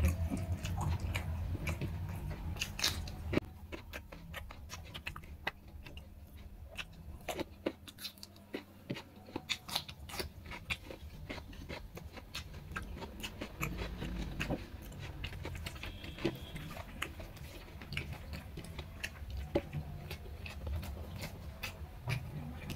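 A person chewing a mouthful of rice and curry eaten by hand, with scattered small clicks and a few crunches over a low steady hum.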